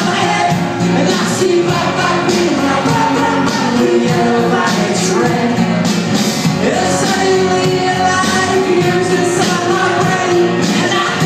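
Indie rock band playing live through the PA: amplified guitars and several voices singing together.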